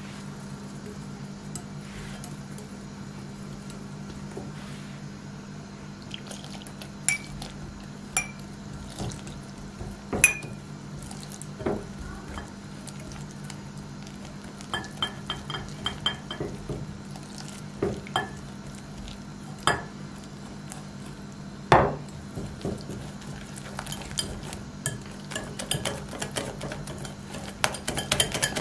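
Metal wire whisk clinking and scraping against a glass mixing bowl as flour, egg and water are stirred into batter. The taps come scattered at first and quicken into rapid clinking near the end, over a steady low hum.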